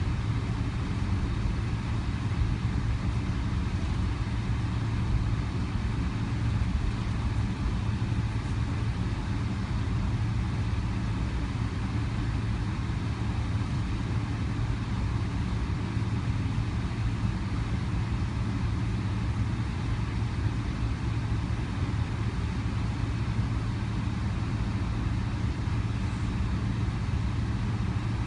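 Steady low hum of a Boeing 777's jet engines at taxi idle, heard inside the passenger cabin together with the hiss of the cabin air, while the airliner taxis slowly after landing.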